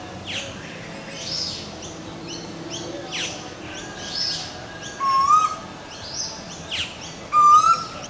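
Birds calling: a steady series of high chirps about once a second, with two louder, short rising whistled calls about five seconds and seven and a half seconds in.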